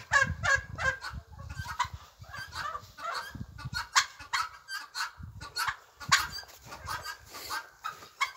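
Animal calls: rapid, repeated short honks, several a second, with clusters of calls one after another.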